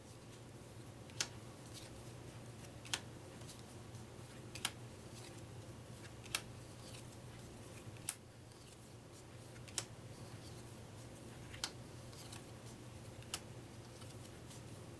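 Playing cards counted out one at a time, each laid down with a sharp tap, eight taps evenly spaced about every second and a half, over a faint steady hum.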